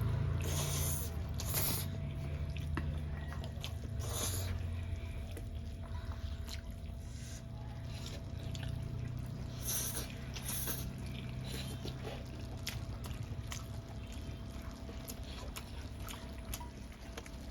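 Close-miked eating sounds: spicy ramen noodles slurped in several short bursts, with wet chewing and mouth noises between.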